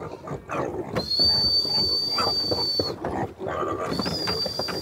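A crate of young pigs being stirred up, squealing and grunting. A high, steady whistling tone holds for about two seconds at a time, twice.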